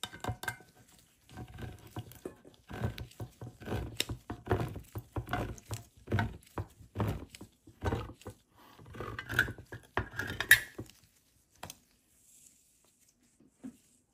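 Handheld crank can opener cutting around the rim of a steel food tin: a fast run of clicks and metal crunches as the cutting wheel turns. It stops about eleven seconds in, followed by a few light taps.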